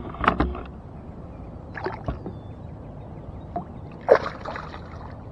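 Water splashing as a largemouth bass leaps clear of the surface beside a kayak, the loudest splash about four seconds in, with a few lighter knocks and sloshes before it.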